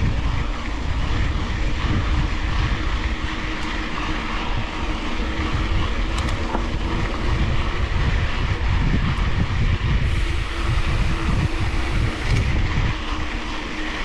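Wind buffeting a GoPro's microphone as a mountain bike rides along a dirt road, mixed with the tyres rolling on the dirt: a steady deep rush with no pauses.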